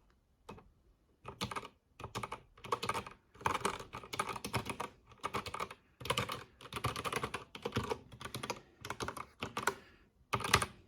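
Typing on an RK68 mechanical keyboard with red linear switches and PBT keycaps: bursts of rapid key clicks and clacks with short pauses between them, starting about a second in.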